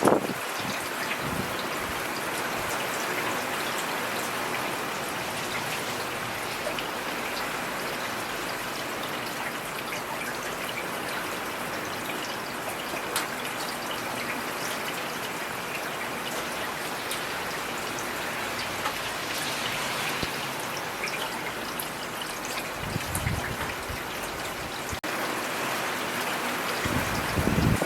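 Steady rainfall, an even hiss with scattered drop ticks. Brief low rumbles come about 23 seconds in and again near the end.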